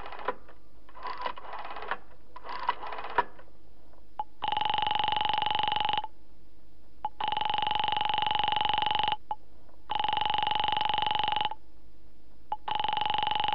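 A telephone: three short runs of rotary-dial clicking, then a bell ringing four times in long rings of about two seconds each, with about a second between them.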